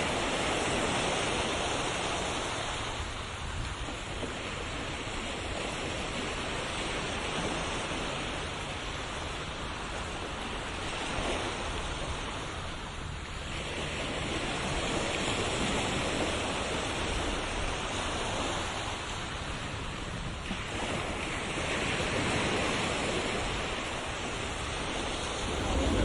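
Ocean surf: waves breaking and washing on a shore in a steady rushing hiss that swells and ebbs every several seconds.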